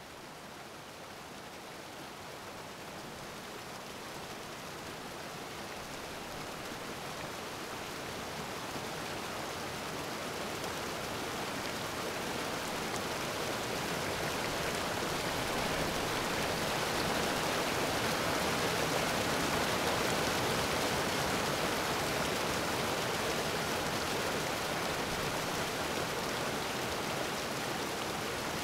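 A steady rushing hiss like rain or running water that slowly swells louder over about twenty seconds, then eases a little near the end.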